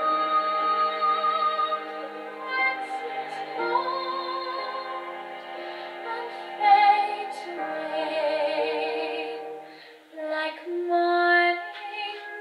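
Music: a woman singing a slow song with long held notes and vibrato.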